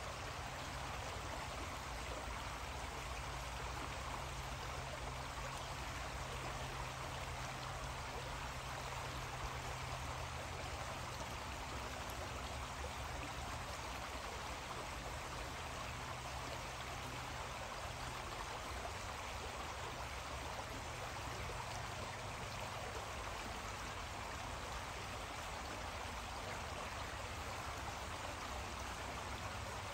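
Creek water flowing: a steady, even rush of water that does not change.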